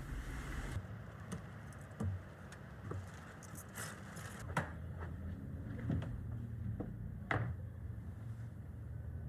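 Road noise inside a car cuts off near the start. After it come a few sharp clicks and knocks and a jingle of keys, as a door is unlocked and opened, over a low steady hum.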